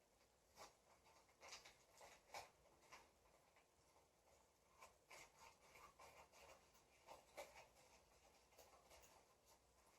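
Faint rustling and light taps of packaging being handled as a parcel is unpacked, irregular and soft, with a few sharper ticks.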